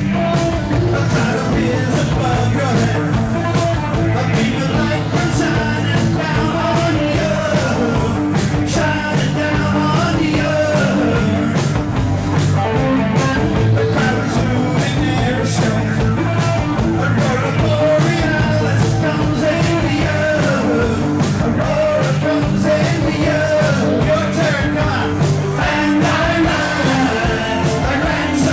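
A rock band playing, with a singing voice over it, steady and loud.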